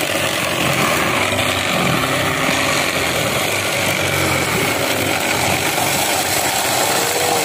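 Electric ice shaver's motor running steadily while a block of ice is pressed down onto its blade, grinding it into shaved ice. The sound is loud and unbroken.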